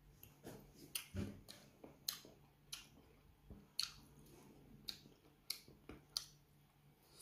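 Faint, irregular clicks of a metal spoon against a plate as rice is scooped, with soft chewing.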